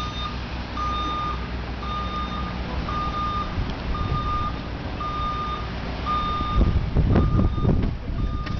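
A truck's backup alarm beeping steadily, about one beep a second, as the truck backs the oversize-load boat trailer. The truck's low engine rumble runs underneath and grows louder near the end.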